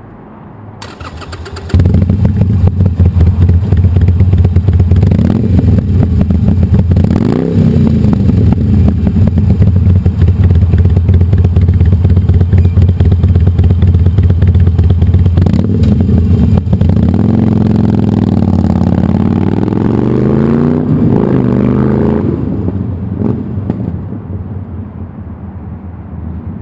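Harley-Davidson Sportster's V-twin engine through Firebrand 3-inch Loose Cannon slip-on mufflers with perforated-core baffles, a deep sound: it is cranked and catches just before two seconds in, then idles loudly. It is blipped once around seven seconds, revved repeatedly from about 16 to 22 seconds, then settles back to a quieter idle.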